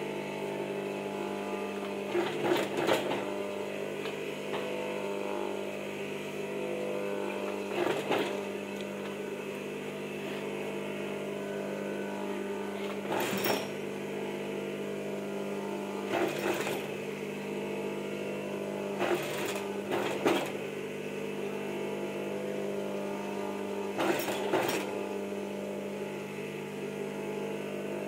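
Singer sewing machine running steadily as it stitches, a constant machine hum broken by a handful of short sharp clicks every few seconds.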